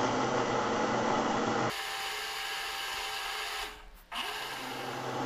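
Electric blender jar running, grinding tomatoes, onion, ginger, garlic and green chillies into a masala paste with no water added. The motor whirs steadily, dips briefly about four seconds in, then picks up again.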